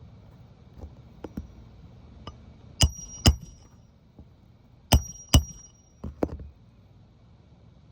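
Hammer strikes on metal during roof shingle work: a few light taps, then two pairs of sharp blows that ring with a high ping, and a last lighter pair.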